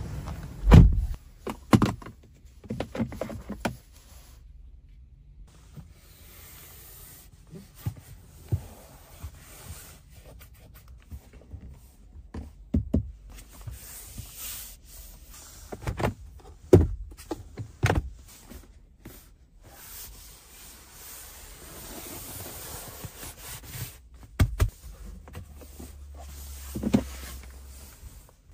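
Hands tapping, pressing and rubbing on a Lexus NX's interior trim (leather door armrest, padded dashboard, centre console), giving scattered soft knocks and thumps with quiet stretches between. The loudest thump comes about a second in.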